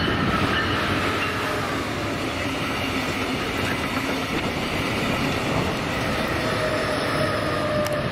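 A train passing close by: a loud, steady rumble of wheels on the rails with clickety-clack and a faint whine above it.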